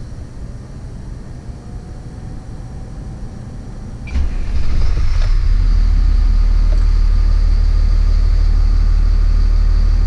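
A machine in the motorhome switches on about four seconds in, after a low steady hum, and then runs as a loud, steady low rumble with a faint high whine on top.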